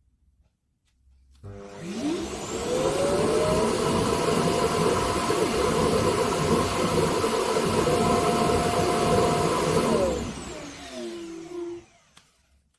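ROIDMI EVA docking station's suction motor emptying the robot vacuum's dust box. It spins up with a rising whine about a second and a half in, runs steadily for about eight seconds, then winds down with a falling whine near the end.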